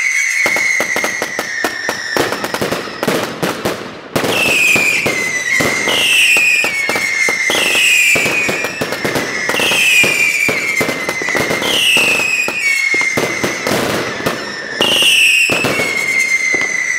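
Six Original Fireworks 'The Force' cakes firing together: a dense barrage of sharp bangs from titanium salutes, with a whistle rising out of it about every one and a half to two seconds that drops in pitch as it goes. There is a brief lull about four seconds in before the barrage picks up again.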